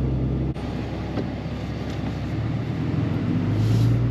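Pickup truck engine and road noise heard from inside the cab while driving slowly, a steady low hum. It breaks off sharply about half a second in, and the hum swells near the end.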